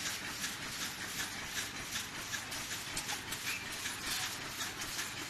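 Automatic paper-cup packing machine running: a steady mechanical hiss with an even, repeating clatter a few strokes a second.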